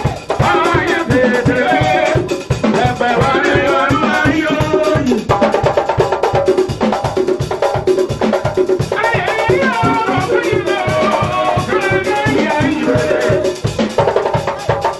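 Live gospel band music: voices singing into microphones over electric keyboard and drum kit, with a steady beat and shaken percussion.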